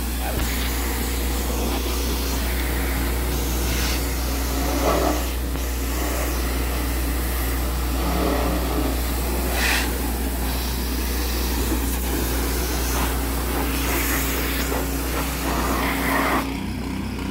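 Pressure washer spraying a semi truck: a steady hiss of the water jet against the truck's metal over a low, constant drone. The spray cuts off about a second before the end.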